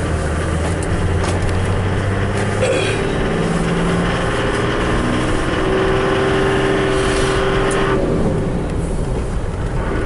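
Engine and road noise of a moving vehicle, heard from inside. The engine note strengthens for a few seconds, then drops away about eight seconds in as the revs fall.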